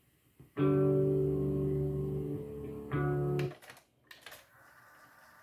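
Guitar music playing back from a cassette in a Sony TC-C5 deck: a chord rings for about two seconds, then a second short chord is cut off abruptly about three and a half seconds in. A few clicks from the deck's transport buttons follow, then a faint steady whirr of the tape winding fast.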